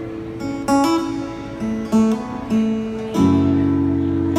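Acoustic guitar played live: a few picked notes and light strums, then a fuller strummed chord about three seconds in that rings on.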